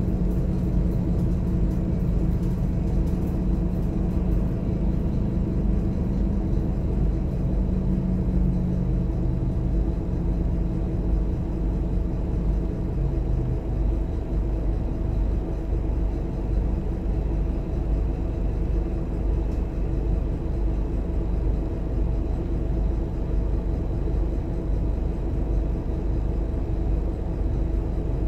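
Scania DC9 inline five-cylinder diesel and drivetrain heard from inside the coach's passenger cabin: a steady drone over a constant low rumble. The engine note drops away about halfway through, leaving the rumble.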